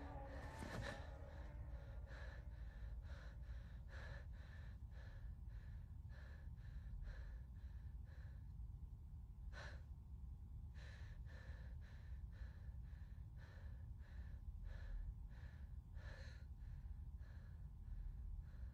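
A man panting in quick, shallow breaths, about two a second, with one sharper gasp about nine and a half seconds in, over a low steady hum.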